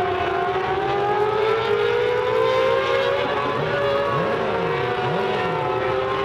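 Mini sprint cars racing on a dirt oval: several engines at high revs blend into a steady drone whose pitch slides slowly up and down. A little past the middle one engine's note climbs and drops twice in quick succession.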